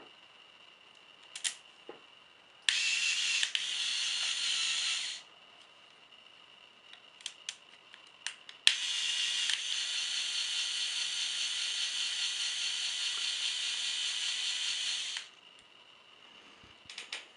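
A small electric motor with plastic gearing runs twice with a steady whir, first for about two and a half seconds, then after a pause for about six and a half seconds. Short clicks come between the runs and near the end.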